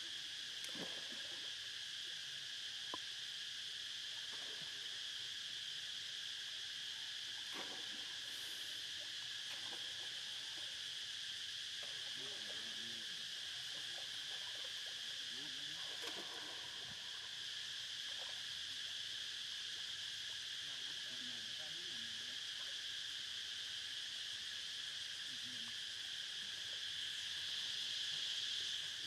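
Steady high-pitched drone of insects calling, unbroken throughout, swelling a little near the end.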